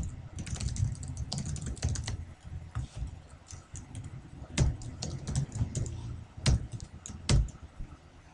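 Typing on a computer keyboard: a quick run of keystrokes over the first two seconds, then slower, scattered key presses with a few harder strokes in the second half.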